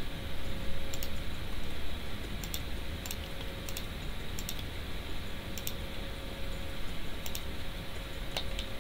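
Scattered clicks of a computer mouse and keyboard, roughly one or two a second, over a steady low background hum.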